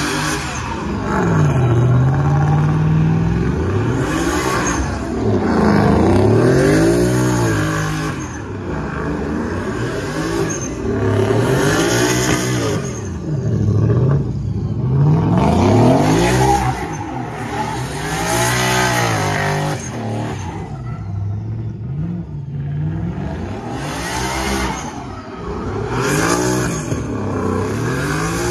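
A car engine revving hard in a burnout pit, its pitch climbing and dropping back again and again about every two seconds, over the hiss of spinning tyres.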